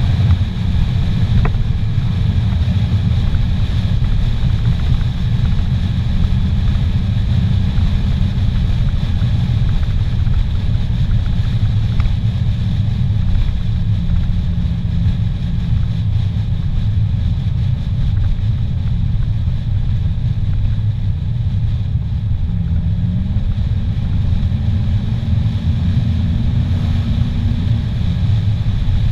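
Inside a car's cabin at highway speed: a steady, loud low rumble of road and wind noise with the engine droning underneath. The engine note rises slightly about three-quarters of the way through.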